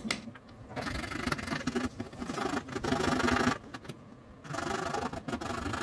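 A blade sawing back and forth through a hollow plastic pen barrel, giving a rasping scrape in two long stretches with a short pause between.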